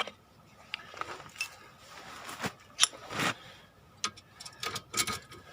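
Metal hand tools clicking and clinking on the car's front strut mounting: a series of irregular sharp clicks, the loudest about three seconds in and several close together near the end.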